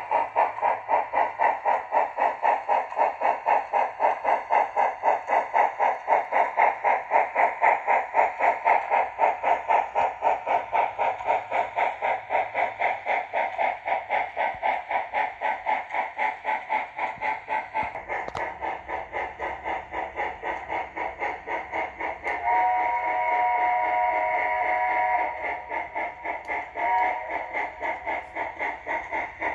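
Model steam locomotive sound decoder (TCS WOWSound) in an On3 D&RGW K-36 No. 485, playing steady steam exhaust chuffs at about four a second through the engine's small speaker. About two thirds of the way through it sounds a long chime whistle blast, then a short toot.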